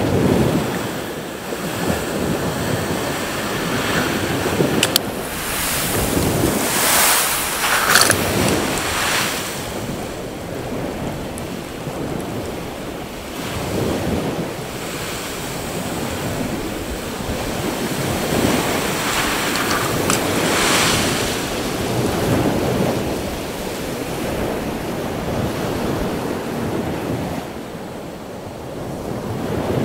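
Heavy storm surf: waves breaking and washing up the beach, swelling louder in repeated surges, with wind buffeting the microphone.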